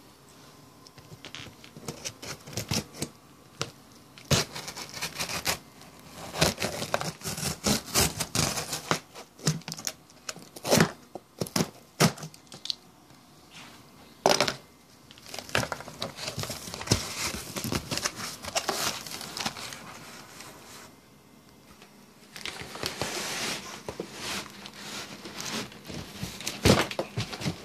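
Cardboard box being handled and opened: irregular bouts of crinkling, tearing and rustling with scattered sharp knocks and clicks, and a short lull about three-quarters of the way through.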